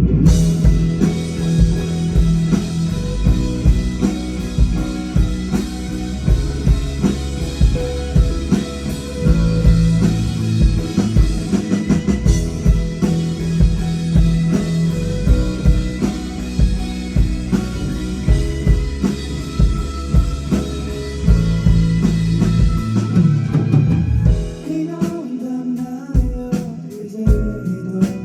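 Live rock band playing the song, with drum kit, bass and guitars all coming in together at once. About 24 seconds in, the drums and cymbals drop away to a quieter passage of guitar with lighter beats.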